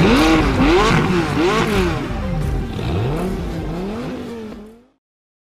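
Car engine revving up and down over and over, roughly every three-quarters of a second, fading away and cutting off near the end.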